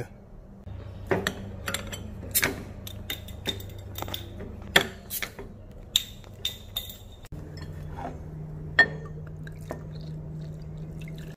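Glass beer bottles clinking and knocking as they are handled and their caps pried off, a run of sharp clinks over several seconds, then beer poured from the bottles into pint glasses.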